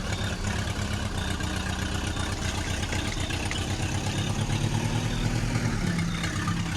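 A vehicle engine running steadily with an even, rapid low chug.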